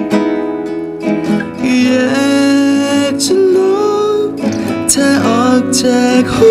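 Live acoustic music: a male singer singing a Thai-language ballad to his own nylon-string classical guitar accompaniment.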